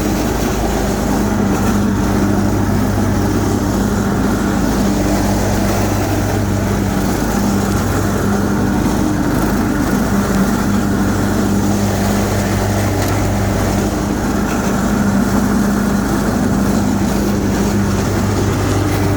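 Big Dog C142 zero-turn mower's engine running steadily with the blades engaged, cutting tall grass. The mower has a vibration that the owner puts down to a bent PTO drive shaft or a loose, worn PTO clutch.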